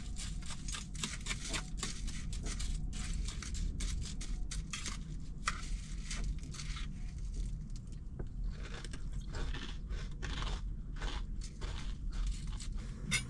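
Crunchy granola with yogurt being chewed, with a quick irregular crackle of bites, and metal spoons scraping and clicking against the bowls.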